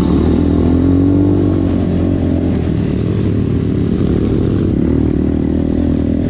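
Rusi KRY 200 dirt bike's engine running steadily under light throttle while riding a dirt trail. Its pitch rises a little and falls back about a second in.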